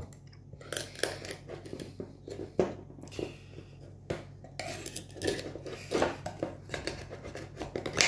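Oyster knife working against an oyster shell: irregular small scrapes and clicks of the metal blade on shell as the oyster is prised open.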